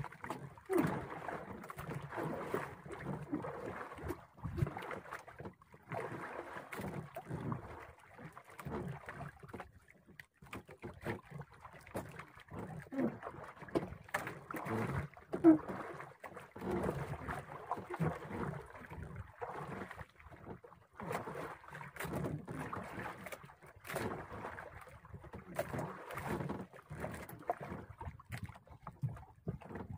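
Water lapping and sloshing against the hull of a small wooden outrigger boat, with irregular knocks and rubbing as a fishing line is hauled in by hand over the bow.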